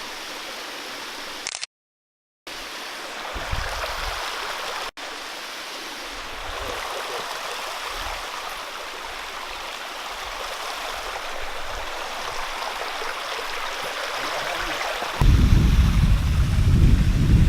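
Steady rushing of falling water from a waterfall. It cuts out completely for under a second about two seconds in. A deep, loud low rumble comes in suddenly near the end.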